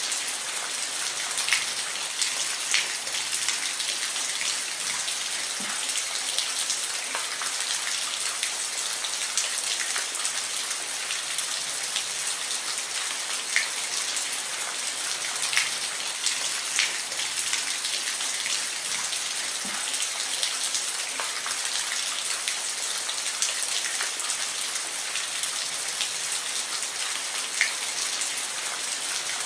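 Steady rain falling, an even hiss with individual drops ticking and pattering close by on a hard surface.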